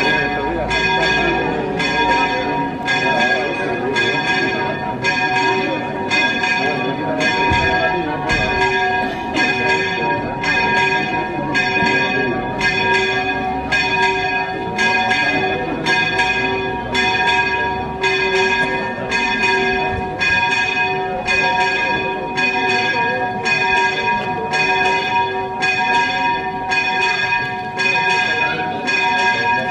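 A church bell rung quickly and evenly, about two strokes a second.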